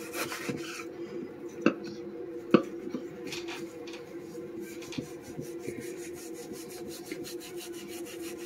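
A long kitchen knife drawn slowly back and forth through a partly frozen block of pork loin, making a soft rasping rub, with two sharp clicks about two seconds in.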